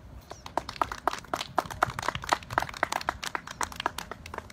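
A small group of people clapping, individual claps distinct and irregular, thinning out near the end.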